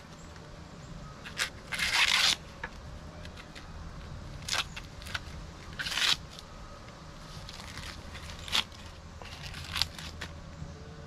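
Hands handling something dry and crackly: about half a dozen short scraping, crackling rustles come and go over a low steady hum.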